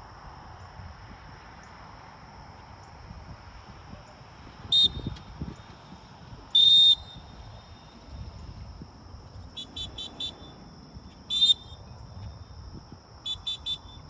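Dog-training whistle blown to handle a retriever running a blind. First comes a short blast, then the loudest, longest single blast, a quick run of about five short toots, another single blast, and a run of short toots near the end. In retriever handling, a single blast is the sit/stop whistle and a string of toots is the come-in whistle.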